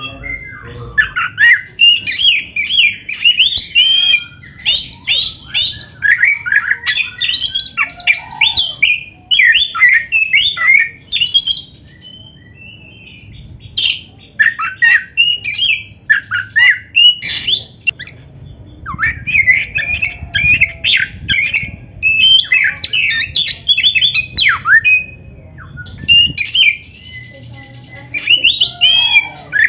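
Oriental magpie-robin (kacer) in full song: a fast, loud run of varied whistles, sweeps and chatters, mixing in phrases mimicked from other birds. The song breaks off twice briefly, about halfway and shortly before the end.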